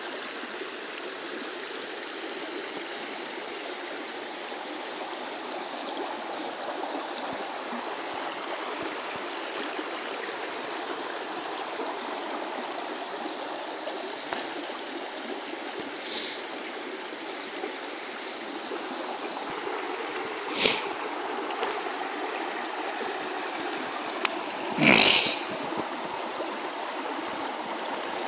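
River in spate rushing over stones and rocks at a stone bridge: a steady rush of fast, shallow water, the river still running high as it settles after a big flood. Twice in the last third a brief, sharper, louder noise cuts across the rush.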